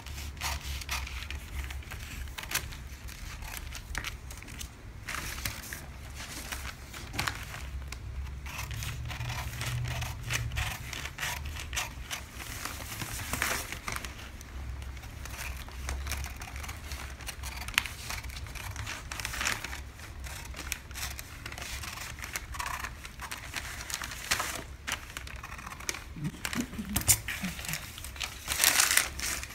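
Large tailor's shears cutting through dotted pattern paper along a side seam in a run of irregular snips, with the paper rustling against the cardboard. Near the end the cut paper piece is lifted and handled, crinkling louder.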